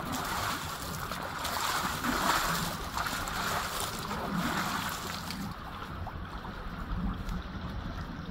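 Small waves lapping at a rocky lakeshore around a seated bather, with wind rumbling on the microphone; the water sound softens about halfway through.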